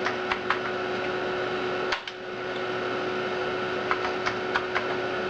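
Steady whir and hum of an Amiga 4000's hard drive and power-supply fan, with short key clicks from typing on its keyboard in a few small groups.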